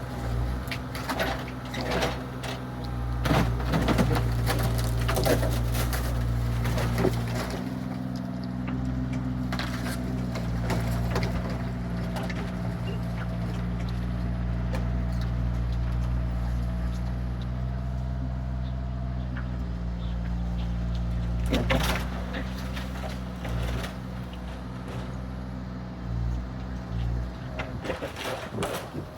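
Bobcat compact excavator's diesel engine running steadily, its note shifting a couple of times as it works, with scattered knocks and clatter, most of them in the first few seconds and again about two-thirds of the way in.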